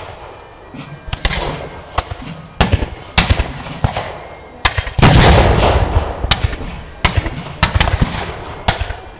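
Black-powder muskets firing scattered single shots, about a dozen spread unevenly, with one far louder cannon blast about five seconds in that rumbles on for a couple of seconds.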